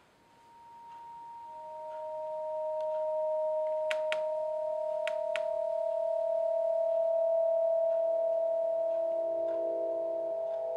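Steady pure electronic tones swelling in one after another: a high tone right away, a lower, louder one about a second and a half in, and several more low tones joining near the end to form a sustained chord. A few sharp clicks sound about four to five and a half seconds in.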